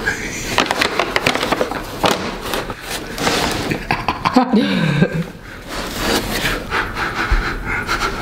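Paper shopping bag crinkling and rustling in quick crackles as a cat rolls and plays in it, with a man laughing breathily and a short falling voiced sound about halfway through.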